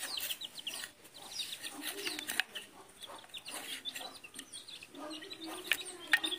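A small flock of hens and chicks: chicks peeping in many short, falling high chirps, hens clucking with a low drawn-out call about two seconds in and again near the end, and sharp taps of beaks pecking feed on a tiled floor.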